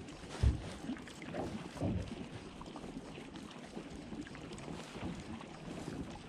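Wind on the microphone and water lapping against a small fishing boat, with a dull knock about half a second in.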